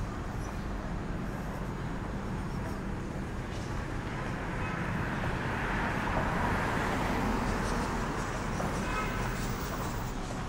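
Town street ambience: a steady hum of road traffic that swells in the middle as a vehicle passes.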